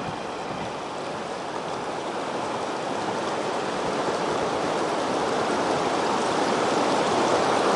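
Fast river riffle rushing over rocks: a steady wash of water that grows gradually louder.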